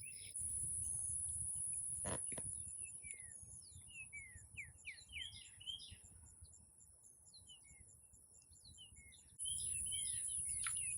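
Birds chirping: many short, quick sliding calls, thickest in the second half, over a steady high hiss and a low rumble of wind, with one sharp click about two seconds in.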